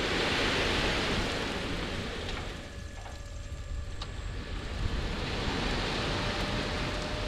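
Wind buffeting the microphone: a steady rushing noise with a low rumble, easing for a moment about three seconds in, then gusting up again.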